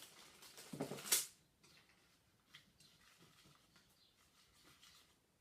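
A short burst of rustling handling noise that ends in a sharp clack about a second in, then a few faint scattered clicks.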